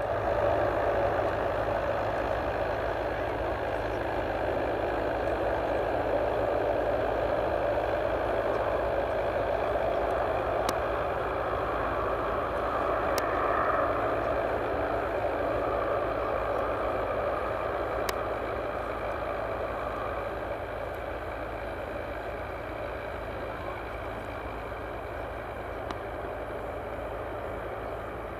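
Airbus A319-100 airliner noise: a steady rushing sound over a low, even hum, easing slightly in loudness in the second half.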